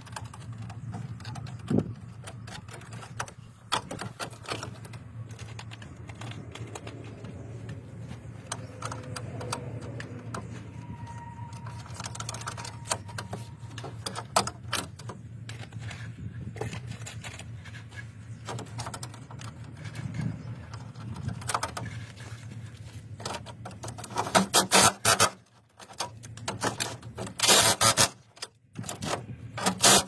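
Hand tools and metal cable lugs on a circuit breaker's bolted terminals: scattered metallic clicks and clatter as cables are fitted and tightened, with two louder runs of rapid clicking near the end, over a steady low hum.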